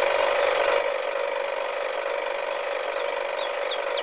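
Small electric gear motor of a homemade toy tractor whirring steadily as it drives. A bird chirps repeatedly near the end.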